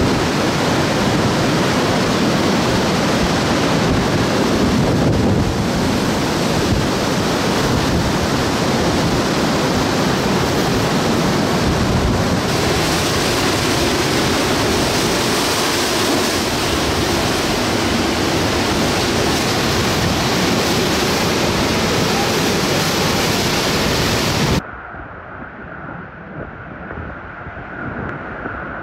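Hurricane-force wind and heavy sideways rain: a dense, steady rushing noise with wind buffeting the microphone. About 25 seconds in it cuts off abruptly to a quieter, gusty wind.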